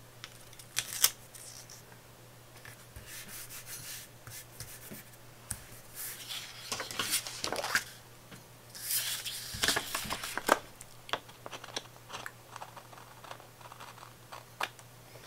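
Paper pages of a disc-bound planner being handled and turned, rustling and rubbing in irregular spells, with scattered sharp clicks; the loudest click comes about a second in.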